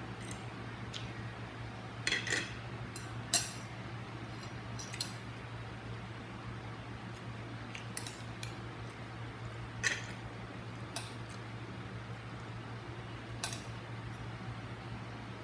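Cutlery clinking against a plate now and then during a meal, a dozen or so sharp clicks spread irregularly, over a steady low hum.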